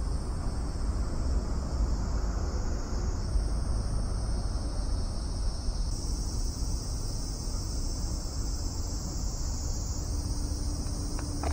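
Cicadas in a steady high-pitched drone that swells a little a few times, over a low wind rumble on the microphone.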